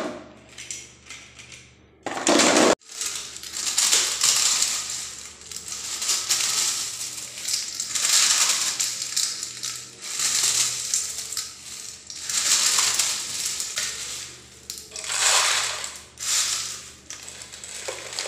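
Crisp fried potato sev and murukku rustling and crackling as handfuls are scooped off a steel plate and dropped into a plastic jar, in repeated waves of dry crunching.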